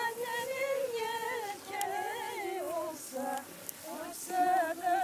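A woman singing a slow, unaccompanied melody in long, wavering held notes.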